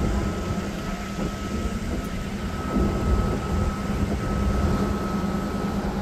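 Steady low rumble with a constant mechanical hum and a thin high tone running through it.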